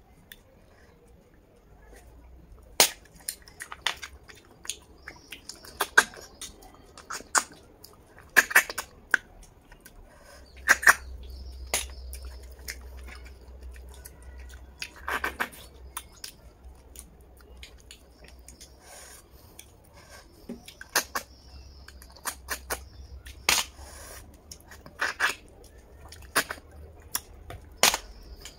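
Eating cooked snails: sharp sucking slurps and mouth smacks at irregular intervals, every second to few seconds, as the meat is sucked from the shells and chewed.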